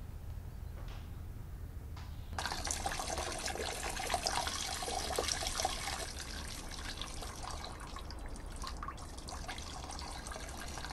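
Liquid trickling and splashing. It starts suddenly about two seconds in, is busiest and most uneven for the first few seconds, then carries on more steadily.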